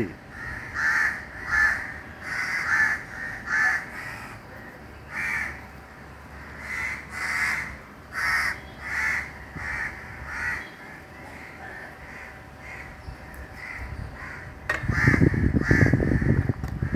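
Crows cawing over and over, roughly one short caw a second. Near the end a louder low noise lasts about two seconds.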